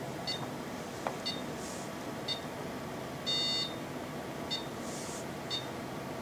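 Short electronic beeps from the Diagnosys ERG test system, six in all, about one a second, with one longer, louder beep about three seconds in, while the full-field ERG test runs.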